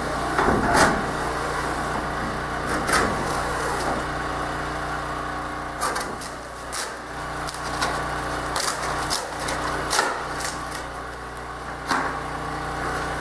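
A steady low mechanical hum runs throughout, with scattered sharp clicks and knocks of hand work on the airframe, about one every second or two.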